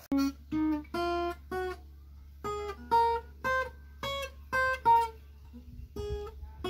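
Acoustic guitar playing a slow melody of single picked notes, about two a second, each note short and separate, with a couple of brief pauses.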